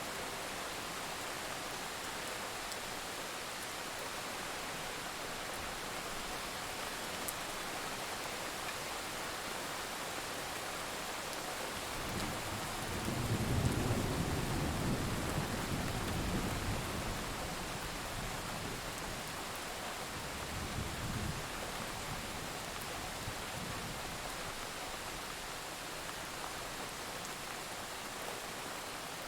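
Steady rain falling. About twelve seconds in, a low rumble of thunder builds, peaks soon after, swells once more and fades out over the following ten seconds.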